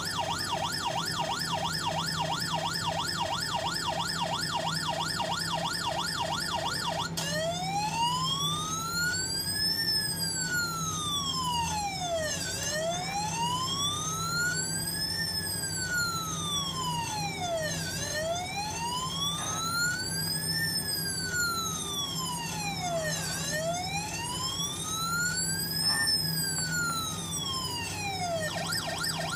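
Electronic ambulance siren from a toy ambulance lantern's sound chip: a fast warbling yelp for about seven seconds, then a slow wail rising and falling about every five seconds, switching back to the fast yelp near the end. A steady low hum runs underneath.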